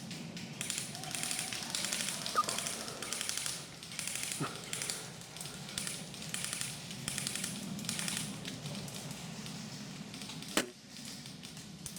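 Repeated short bursts of rapid airsoft gunfire rattling, with a louder single sharp shot about ten and a half seconds in.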